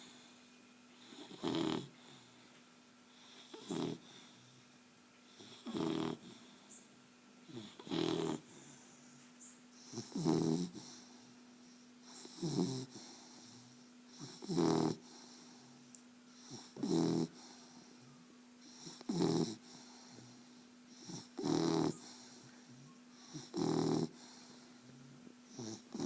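A sleeping puppy snoring, one snore about every two seconds in an even rhythm. A faint steady hum runs underneath.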